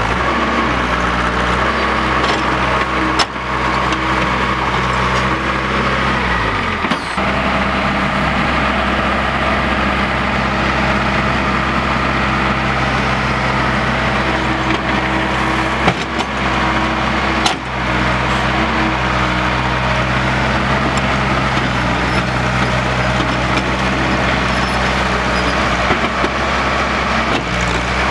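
Heavy diesel engines of a ten-wheel dump truck and a tracked excavator running steadily under load. About six seconds in, the engine note falls, then it runs steady again. A few short knocks stand out over the engine noise.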